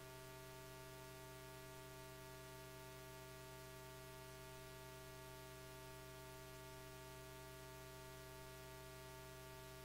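Near silence with a faint, steady electrical hum from the sound system.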